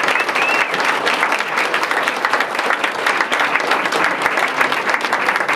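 Audience applauding steadily: many people clapping at once in a dense, even stream of claps.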